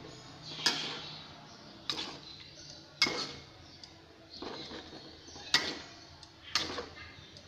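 A spoon stirring sa tế chili oil in a metal pan, knocking and scraping against the pan with about five sharp clinks spaced a second or so apart.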